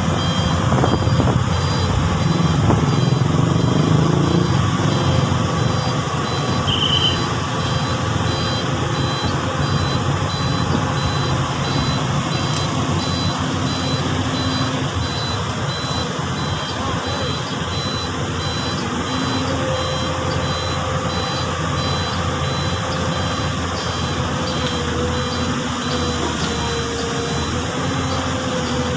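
Komatsu PC200 hydraulic excavator at work, its diesel engine running steadily under load, with a repeated beeping alarm on top.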